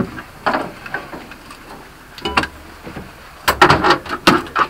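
Irregular knocks and clanks of kit, rifles and bodies against the metal interior of an OT-90 armoured personnel carrier's troop compartment, with a loud cluster of clanks about three and a half seconds in.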